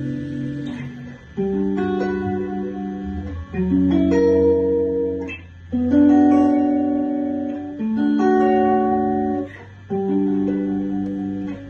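Guitar chords strummed one at a time and left to ring, a new chord about every two seconds, in a slow sound-check progression.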